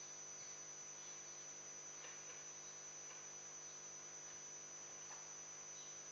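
Quiet room tone carrying a steady mains hum, with a thin, high, steady whine above it and a few faint rustles.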